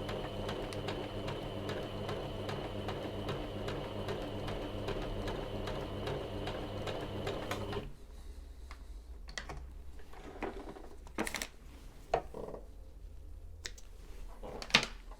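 Janome MyExcel 23X electric sewing machine running at a steady speed, stitching a test seam at stitch length 2, then stopping abruptly a little past halfway. A few soft clicks and handling knocks follow.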